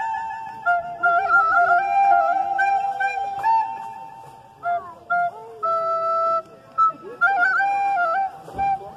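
Wooden flute playing a slow melody of held notes. It eases to a lull about four seconds in, then returns in shorter phrases.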